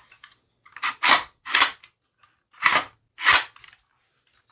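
Henry Homesteader 9mm carbine's charging handle racked twice, each pull-back and release giving a pair of sharp metallic clacks as the bolt runs back and slams forward. The bolt hold-open catch doesn't hold the bolt to the rear.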